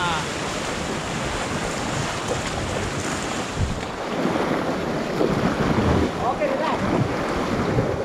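Fast river current rushing and churning around an inflatable raft, with wind buffeting the microphone.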